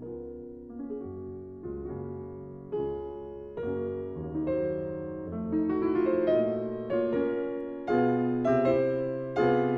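Background piano music: chords struck a little more than once a second, each ringing out, growing louder toward the end.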